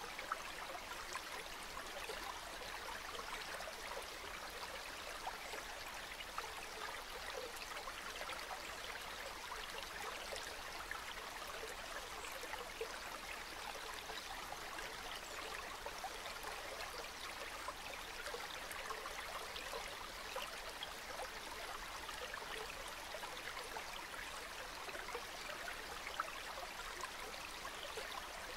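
Calm river water flowing steadily, with small trickles and splashes through it.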